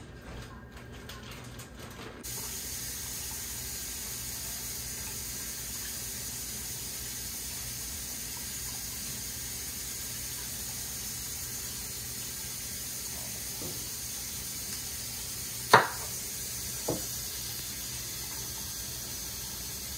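Kitchen tap running steadily, switched on about two seconds in. Near the end there is a sharp knock, followed a second later by a lighter one.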